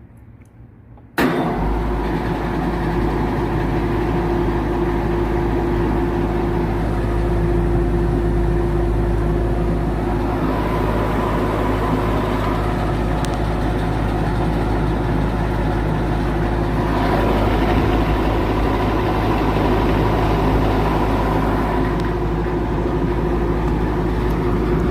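AC condenser fan motor starting abruptly about a second in as its contactor is pushed in by hand, then running loud and steady with a hum and steady tones. The motor is bad: it is drawing 3.18 amps against a 2.8 amp full-load rating.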